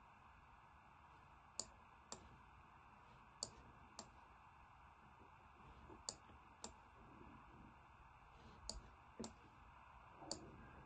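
Computer mouse clicking in pairs about half a second apart, four pairs and a single click near the end, over faint room hiss.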